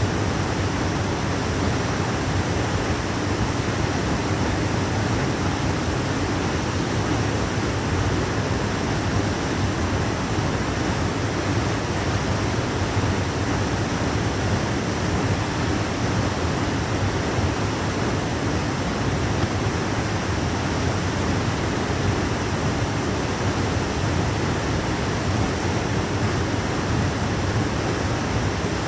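Waterfall, water falling and splashing in a steady, even rush.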